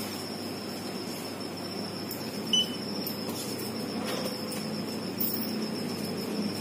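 Steady background hum and hiss with a faint high-pitched whine, and a single short electronic beep about two and a half seconds in.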